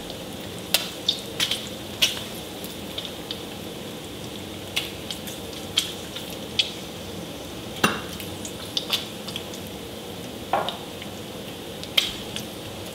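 Bacon frying in a skillet: a steady sizzle broken by irregular sharp pops and crackles of spitting grease.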